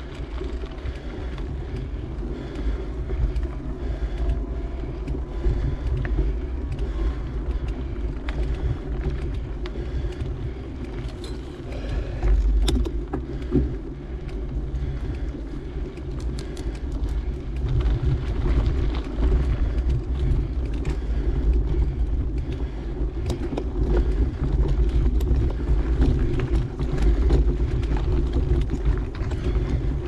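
Mountain bike riding on a dirt trail, heard through a ride-mounted microphone: a steady low rumble of wind buffeting the mic and tyres rolling on dirt, with scattered clicks and rattles from the bike. The rumble grows louder about twelve seconds in and again in the last third.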